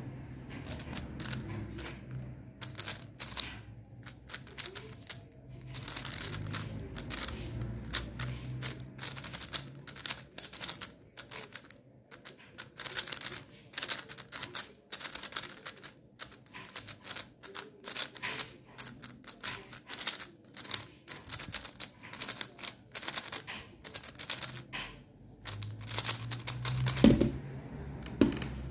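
A megaminx being turned at speed: a fast, irregular run of plastic clicks and clacks as its faces are twisted. A louder thump near the end.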